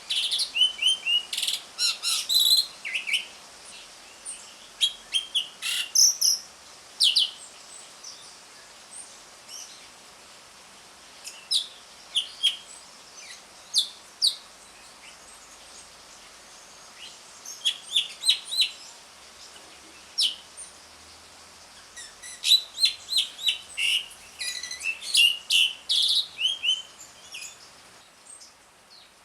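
Asian pied starling (jalak suren) calling in clusters of short, sharp, chattering notes, with a few quieter pauses between the clusters.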